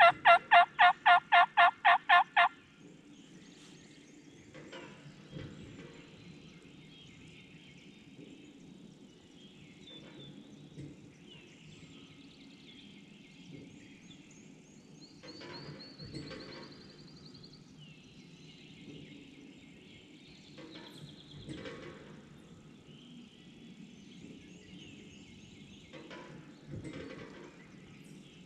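A turkey call blown or run close by in a rapid, even series of hen yelps, about four a second, stopping about two and a half seconds in. After it, a faint low hum with a soft knock about every five seconds and a few faint songbird chirps.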